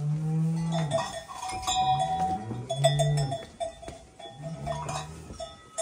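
Livestock calling in about four low, drawn-out cries, with an animal's neck bell clinking steadily among them.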